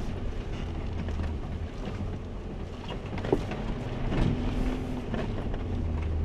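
Jeep engine running steadily at low speed as it climbs a rough off-road trail, with a sharp knock about three seconds in.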